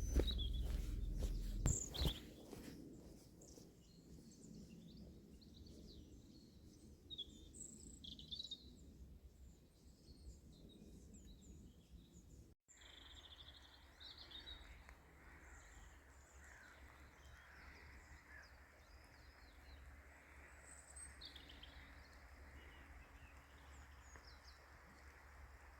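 Faint woodland birdsong: scattered short chirps and calls from several small birds over a quiet background hiss. A few knocks and rustles come in the first two seconds.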